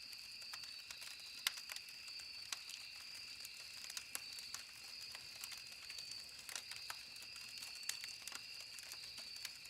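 Campfire crackling, with wood popping in irregular sharp clicks, one louder pop about a second and a half in. A steady high-pitched drone runs underneath.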